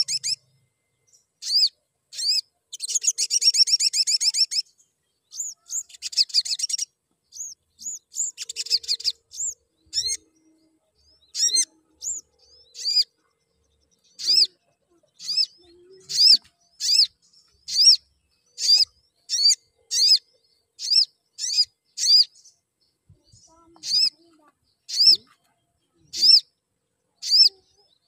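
Male olive-backed sunbird calling: rapid high trills in the first several seconds, then a long run of short, sharp, high chirps, about one to two a second.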